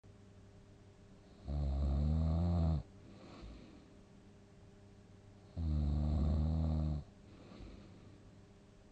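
Deep sleeper snoring loudly: two long, rattling snores about four seconds apart, each lasting just over a second, with quiet breathing between them.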